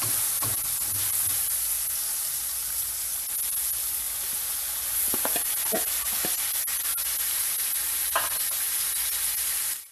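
Steady sizzling in a wok as slices of bitter gourd go into the sautéed pork, tomato and onion. A few sharp clicks of a utensil on the pan are heard, the loudest about eight seconds in.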